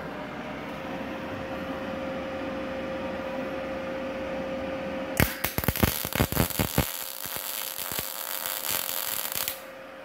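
MIG welding arc of a Multipro MIG-MAG 200 G-SP welder crackling on thin 1.5 mm steel plate for about four seconds, starting about halfway through with a few sharp pops and cutting off suddenly. The welder is run at low current, about 55–60 A, with CO2 shielding gas; before the arc strikes there is a steady hum.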